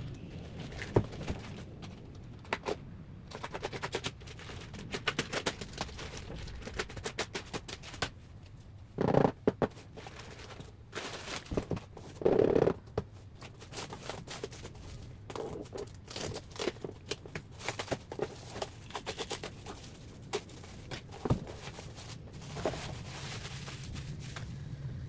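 Skincare kit packaging being handled and opened: irregular clicks, taps and rustles, with louder rustling bursts about nine and twelve seconds in.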